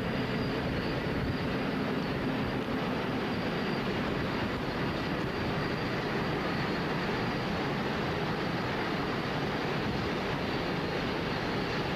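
Freight train of coal hopper wagons rolling steadily across a steel girder railway bridge: a continuous rumble of wheels on rails, with a faint steady whine above it.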